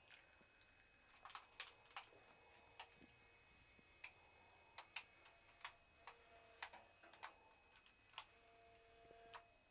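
Faint, irregular sharp ticks, roughly one or two a second, with a couple of brief faint hums in the second half.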